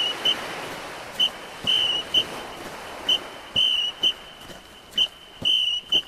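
A whistle blown in a repeating pattern of short, long and short blasts on one high pitch, about one group every two seconds. The pattern comes three times in full, over a faint hiss.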